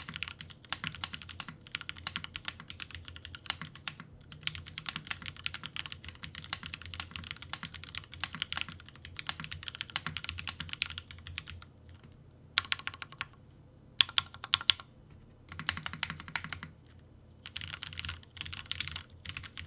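Typing on a Baionlenja Bias custom mechanical keyboard: fast, continuous keystrokes in long runs, breaking into shorter bursts with brief pauses in the second half.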